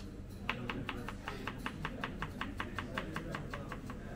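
Knife chopping quickly and evenly on a plastic cutting board, about six strikes a second, starting about half a second in and stopping near the end.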